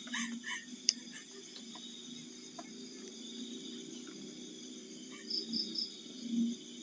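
Night insects, crickets, trilling steadily, with a few short chirps and a sharp click about a second in.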